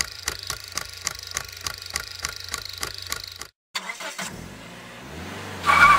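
Logo sound effects: a fast, even clicking over a steady low hum that cuts off about three and a half seconds in. After a short break comes a car engine running, with a louder burst near the end.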